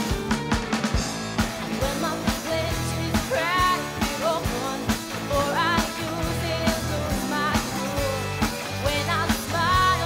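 Live rock band playing: electric guitar, bass and drums with a steady beat, and wavering sung lines over them.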